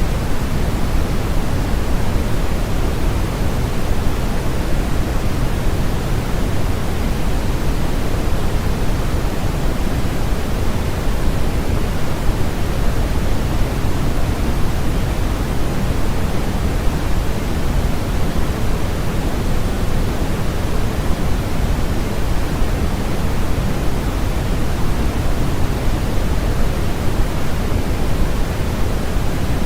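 Steady synthesized noise for sleep masking: an even, unbroken hiss with no change in level, heavier in the low end than the treble.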